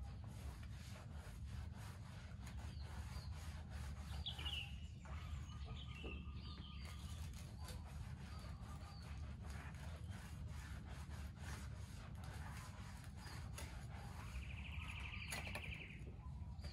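A fixie bicycle being scrubbed by hand during a wash: a continual run of short rubbing strokes. Birds chirp in the background, with a brief rapid trill near the end.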